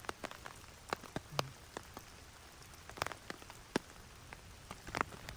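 Raindrops hitting a clear plastic umbrella overhead: irregular sharp taps, a few a second, over a faint hiss of light rain.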